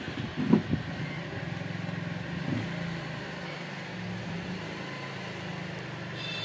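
A few short knocks about half a second in as the cooler's plastic blower housing is handled, then a steady low engine hum.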